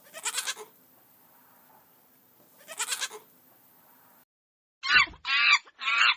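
Sheep bleating twice, a couple of seconds apart. About five seconds in, a different animal starts a quick run of short, loud calls.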